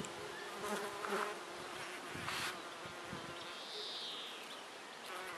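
Honeybees and a bumblebee buzzing as they forage in a peony flower: a steady hum.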